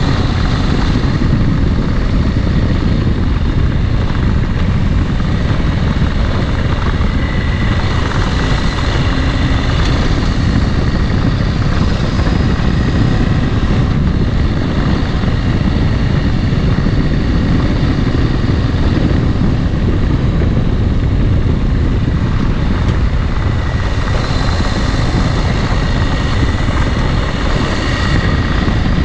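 Dual-sport motorcycle engine running steadily while riding, under heavy wind rumble on the microphone.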